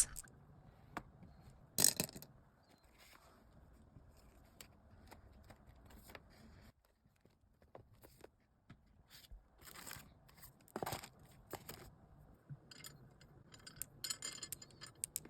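Sparse handling sounds of mini notebooks and notepads being picked up and set down: light taps, scrapes and rustles, with a brief louder rustle about two seconds in and another about eleven seconds in, and a scatter of small clicks near the end.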